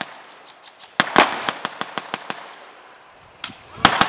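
Airsoft guns firing: sharp snapping shots, a loud one about a second in followed by a quick run of fainter shots that fades, then another sharp shot near the end as rapid fire picks up again.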